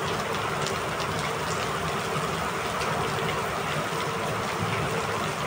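Heavy rain falling steadily, with a few faint clicks scattered through it.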